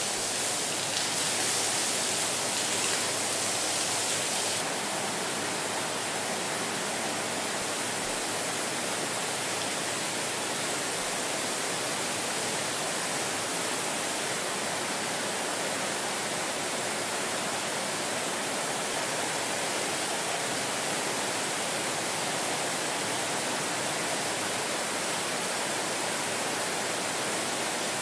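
Water jets from an overhead spray rig drenching a car's body in a water-leak test booth: a steady rushing hiss of spray, a little brighter for the first few seconds.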